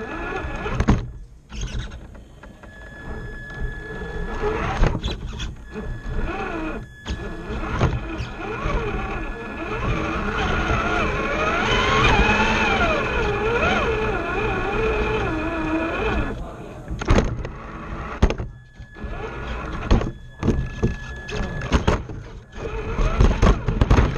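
RC rock crawler's electric motor and geared drivetrain whining through an onboard camera microphone, with the whine starting and stopping as it drives and clicks and knocks as it climbs the course.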